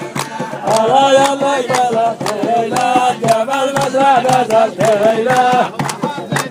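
Men singing a folk chant over a steady percussion beat, accompanying dancing; the singing grows louder about a second in.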